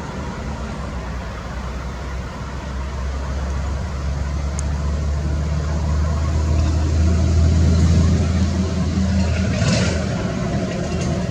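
Road traffic on a busy arterial road: a steady low rumble of passing vehicles that swells about two-thirds of the way through as a vehicle goes by, then eases off.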